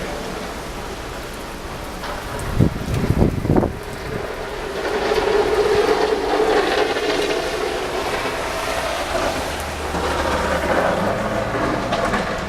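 A strong wind gust rushing through trees during a blizzard, swelling to a peak about halfway through and easing slowly. Low thumps of wind buffeting the microphone come in the first few seconds.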